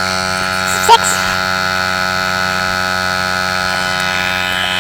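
Portable electric tyre inflator's compressor running with a steady buzzing hum as it pumps up a motorcycle tyre towards its set pressure. A brief voice cuts in about a second in.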